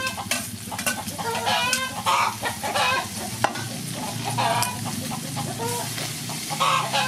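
Chicken gizzard with basil and chili sizzling as it is stir-fried in a wok, a metal spatula scraping and tapping the pan, with one sharp tap about three and a half seconds in. Chickens cluck repeatedly in the background.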